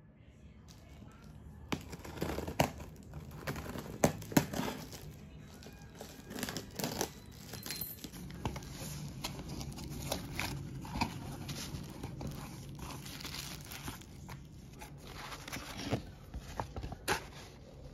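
Clear plastic wrap being crinkled and torn off a cardboard box, with many sharp irregular crackles, then the rustle of paper and cardboard as the box is opened.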